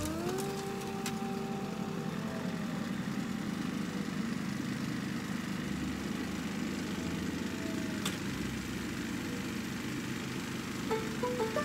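Snow thrower's petrol engine running steadily.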